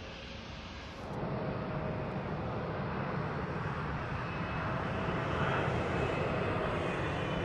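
Airliner engine noise, a steady rumble with a faint whine, stepping up in level about a second in and then growing slowly louder.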